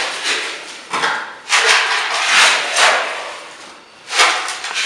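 Hand trowel scraping and scooping through damp concrete mix in a wooden form, in gritty scrapes: a short one about a second in, a longer stretch in the middle, and another near the end.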